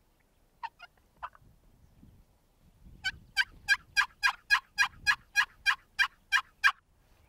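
Turkey yelps: two or three short notes about half a second to a second in, then a steady run of about a dozen evenly spaced yelps, roughly three a second.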